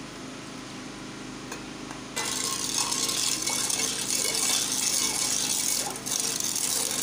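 Steel ladle stirring sugar into milk in a steel pot: liquid swishing with light clinks and scrapes of the ladle against the pot, louder from about two seconds in, over a low steady hum.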